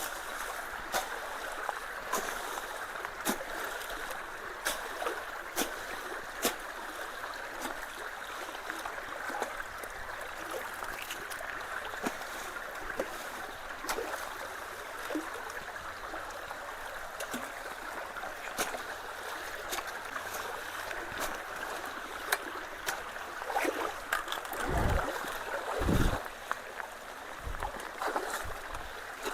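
Steady rush of water flowing through and around a partly clogged road culvert, with many small sharp clicks scattered throughout. Two heavier low thumps come near the end.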